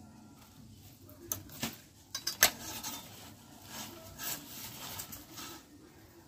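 Steel wire being fed by hand through the metal guide hole and rollers of a chain-link fencing machine: light metallic scraping with scattered clicks, the sharpest few between about one and two and a half seconds in.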